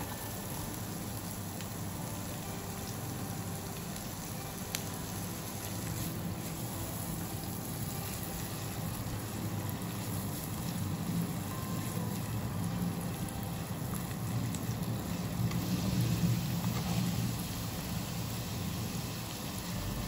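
Chopped onion and garlic sizzling in hot oil and butter in a frying pan, with a few light clicks; the sizzle grows somewhat louder near the end.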